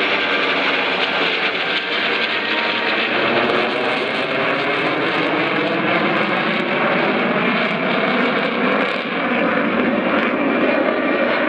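Steady jet engine noise from a formation of an F-4 Phantom II and an F-15 Eagle flying with a P-51 Mustang, passing overhead. The tone slowly sweeps up and down in pitch as the aircraft pass.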